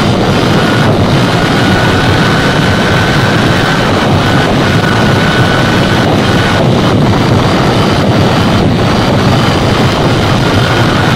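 Steady loud rush of wind over the microphone and road noise from a vehicle travelling at about 50 km/h, with a faint steady high whine and a few brief dips.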